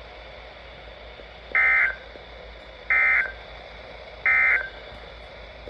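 Emergency Alert System end-of-message signal: three short bursts of warbling digital data tone, about a second apart, over a faint steady radio hiss. It marks the end of a NOAA Weather Radio alert broadcast.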